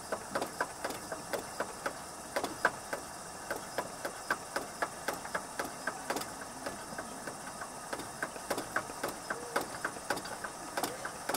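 Pump plunger of a Coleman NorthStar dual-fuel pressure lantern worked in quick strokes to pressurise the fuel tank: a steady run of sharp clicks, about three a second.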